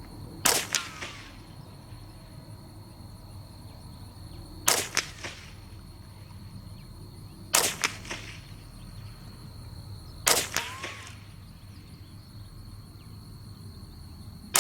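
Custom Ruger 10/22 semi-automatic .22 rifle firing CCI subsonic rounds. There are four sharp, fairly light cracks a few seconds apart, each followed by a brief echo.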